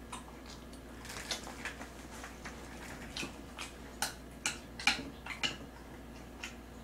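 Close-miked eating: short wet mouth clicks from chewing, with wooden chopsticks clicking against the dish. The clicks are irregular, loudest and most frequent about four to five seconds in.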